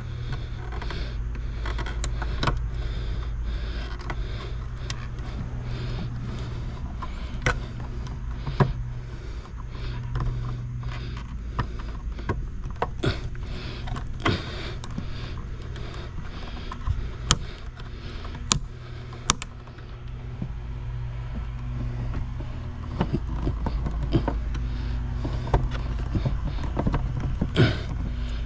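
Scattered sharp clicks and taps of wires and terminal parts being handled in the wiring compartment of a ChargePoint EV charger, over a steady low hum.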